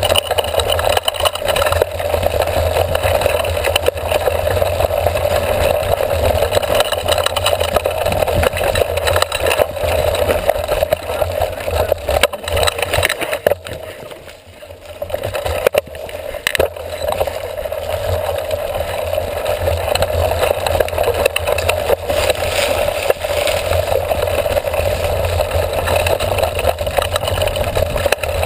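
Continuous rumble and rattle of a mountain bike riding a dirt trail, picked up through a seatpost-mounted camera: tyre and frame noise with wind on the microphone. About halfway through it drops away briefly as the bike slows, then builds again.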